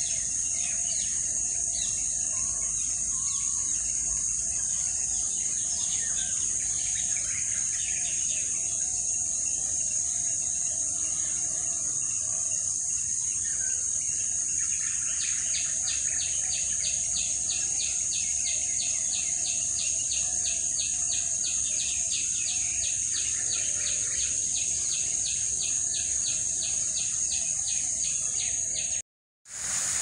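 A steady high-pitched drone of insects, with scattered chirping bird calls over it. From about halfway a rapid, regular series of short high notes, about three a second, joins in. The sound cuts out briefly near the end.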